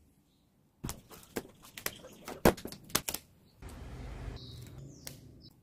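A quick run of light clicks and taps, then about two seconds of soft paper rustling as the page of a spiral-bound planner is handled.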